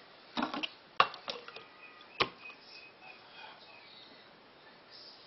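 A few sharp knocks and clinks of a glass canning jar and a plastic canning funnel being handled and set down on a bench. The loudest knock comes about a second in, and there is a last sharp click a little after two seconds.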